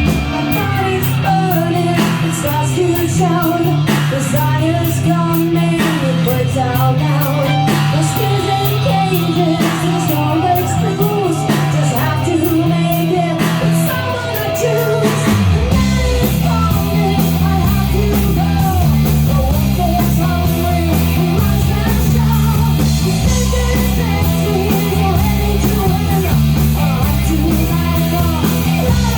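Hard rock song: a singing voice over electric guitar, bass and drums. About halfway through, the band gets fuller and heavier in the low end.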